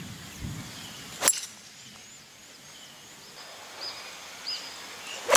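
A golf club strikes the ball once with a sharp crack about a second in, then birds chirp faintly over quiet outdoor ambience.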